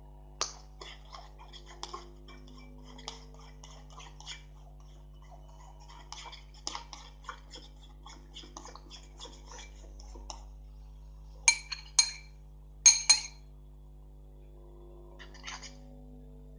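Spoon stirring thickening glue-and-detergent slime in a bowl: a run of small clicks and scrapes, then four sharp ringing clinks of the spoon against the bowl about two-thirds of the way through.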